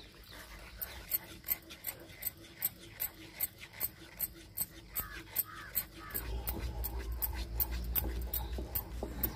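A wooden spatula stirs and scrapes thick, simmering milk in a kadhai, making a quick scratchy stroke about three times a second. A low hum joins about six seconds in.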